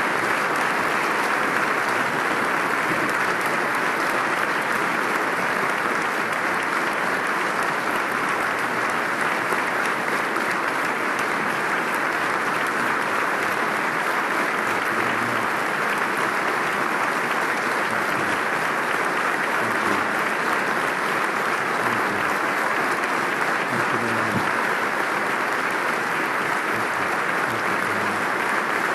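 A large audience applauding steadily without a break, a sustained ovation of many hands clapping at once.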